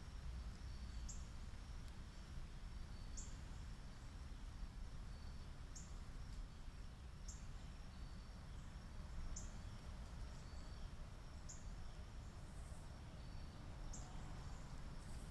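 Summer-evening outdoor ambience: a faint steady high insect trill, with a short high chirp repeating about every two seconds, over a low rumble.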